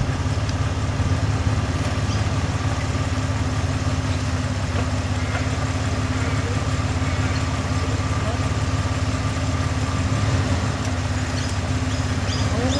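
Vehicle engine idling steadily: a low, even hum that holds at one pitch throughout.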